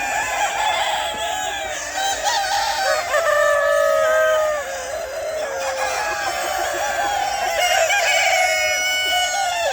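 A flock of chickens clucking and calling over one another, with roosters crowing: one long crow about three seconds in and more near the end.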